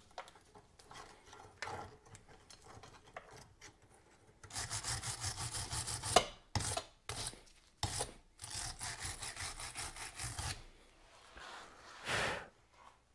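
Hand wire brush scrubbing back and forth on the rusty steel driveshaft at the center bearing, in two spells of a couple of seconds each. A few sharp metallic clicks come between the spells, and a short scrape follows near the end.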